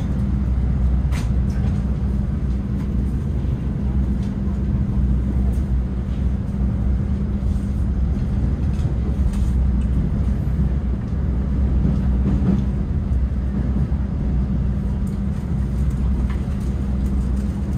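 Steady low rumble of a passenger train, heard from inside the carriage while it runs, with a few faint clicks.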